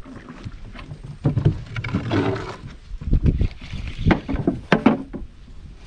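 Spinning reel being wound against a hooked fish from a small boat, with many irregular knocks and clicks of the tackle and hull as the fish is fought to the boat.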